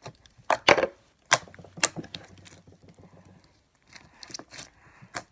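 Foam slime with foam beads being squished and stretched by hand, giving a few sharp clicks and pops in the first two seconds, then softer crackling.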